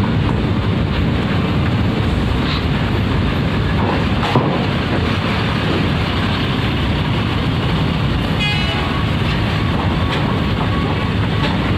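Diesel coach bus driving off past close by, its engine running over a steady din of traffic. There is a sharp click about four seconds in and a brief high warble about eight seconds in.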